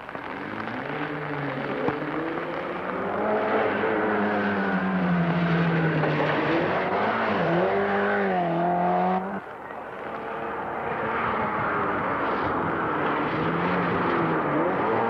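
Rally car engines revving hard, pitch climbing and dropping through gear changes as the cars pass at speed. The sound cuts off abruptly about nine seconds in and picks up on another car accelerating.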